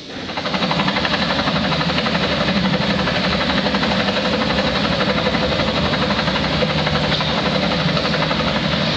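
Engine sound effect: a loud motor running steadily with a fast, even pulsing beat, coming in suddenly at the start.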